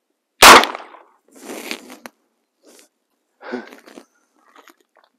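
A single 9mm pistol shot about half a second in, fired at a steel Spartan-style helmet, with a short ring-out after it.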